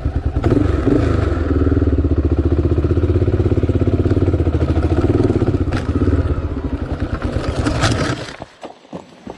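Vehicle engine running with an even pulsing beat, then cutting off abruptly about eight seconds in.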